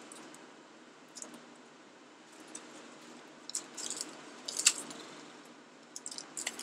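Foil wrapper of a Panini Prizm baseball card pack crinkling and tearing as it is peeled open by hand, in short scattered bursts, the loudest about four and a half seconds in.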